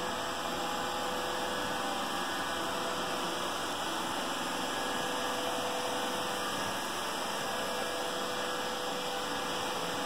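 Roomba robot vacuum running: a steady hum over an even hiss.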